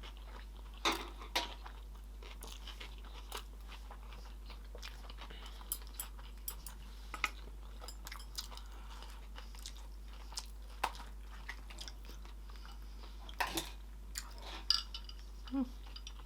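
A person chewing mouthfuls of sushi close to the microphone, with irregular crunches and small wet mouth clicks.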